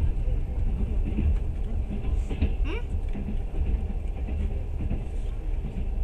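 Moving passenger train running, heard from inside the carriage: a steady low rumble.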